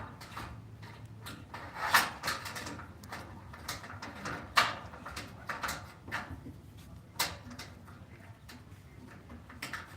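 Handling noise as a condensate flow switch and its wire are set in place and tied down: scattered clicks and knocks of small plastic parts and wire, the sharpest about two, four and a half and seven seconds in, over the low hum of the running air handler.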